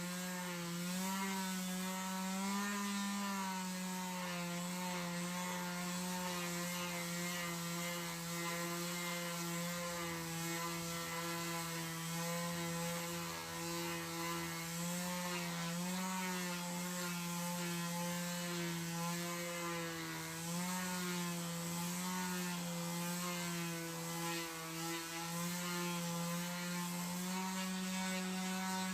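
Electric grinder motor running steadily on the steel of a tractor rotary-tiller blade being shaped into a machete. It holds one buzzing tone, and the pitch sags slightly now and then as the tool takes load.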